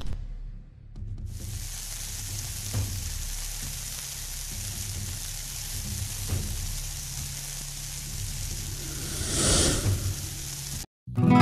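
A spice-coated fish fillet frying in oil on a hot flat pan: a steady sizzle that swells briefly near the end, then cuts off abruptly.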